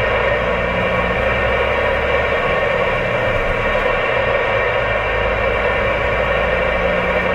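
Steady loud hiss from a two-way radio channel held open, with a low hum underneath; the sound is cut off sharply at the top like radio audio.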